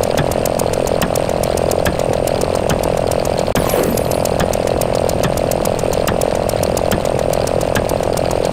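Synthetic counter sound effects: a steady buzzing drone with a rapid, even train of sharp ticks, several a second, as digits roll over.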